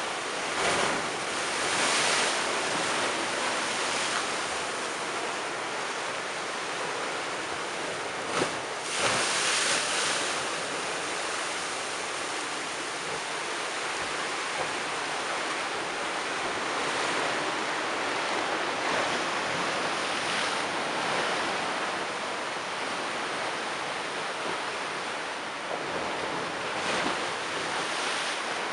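Rough storm-surge sea breaking against stone steps and a sea wall: a steady wash of surf, with louder crashing surges about a second in and again around nine seconds in.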